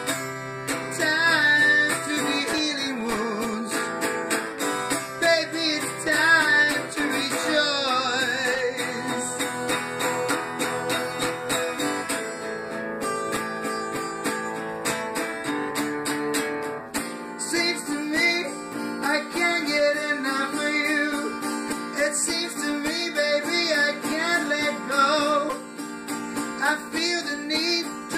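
A rock and R&B style guitar song: steady guitar chords under a wavering lead melody. The accompaniment changes about seventeen seconds in.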